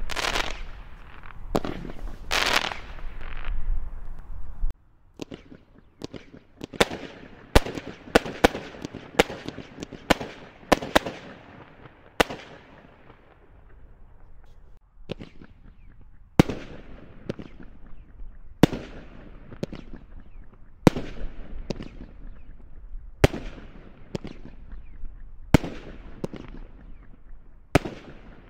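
Consumer multi-shot firework cakes firing. The first few seconds are dense, overlapping bursts; this cuts off suddenly to a quick run of sharp cracks and bangs. In the second half come single sharp reports about every two seconds, each fading away over about a second.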